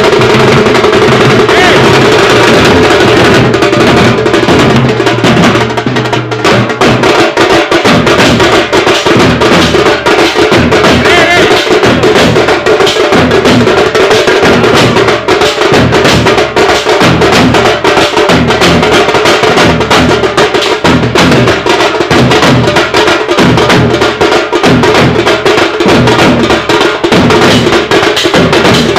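Street drum band of hand-carried steel-shelled drums and a bass drum beaten with sticks, playing a loud, fast, driving rhythm, slackening only briefly about six seconds in.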